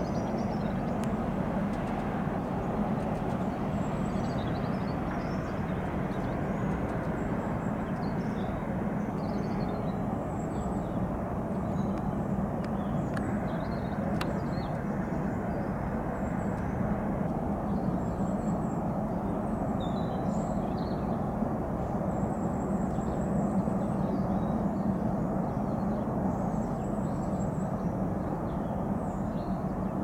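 Distant, steady rumble of an Embraer Phenom 300 business jet's twin turbofans at low power as it taxis slowly along the runway after landing.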